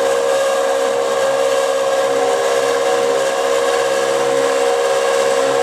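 End mill side-cutting the edge of a 6 mm bright mild steel plate on a small milling machine, chattering: quite a racket, a steady loud screech with one strong held tone. The chatter is the sign of a cut being pushed hard at full depth.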